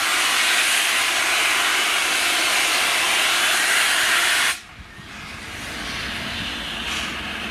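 Steam locomotive's cylinder drain cocks blowing off steam in a loud, steady hiss as it starts away with its train. About four and a half seconds in the hiss cuts off suddenly as the cocks are closed, leaving the quieter, low sound of the engine working.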